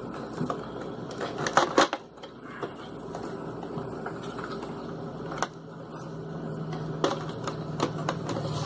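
Cardboard Funko Pop box being handled and its top flap worked open by hand: scrapes and rustles of cardboard with scattered sharp clicks, a cluster of them about a second and a half in.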